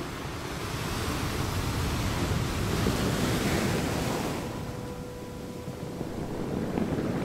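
Ocean surf surging over a lava flow where it enters the sea, with the hiss of hot lava meeting cold seawater. One surge swells about a second in and dies away after about four seconds, and another builds near the end.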